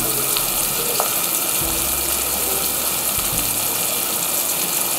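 Chopped onion, capsicum and tomato sizzling steadily in hot oil in a wok, with a few faint ticks.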